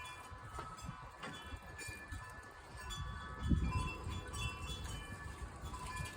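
Wind chimes tinkling: scattered short ringing tones at several pitches, over a low rumble that swells about three and a half seconds in.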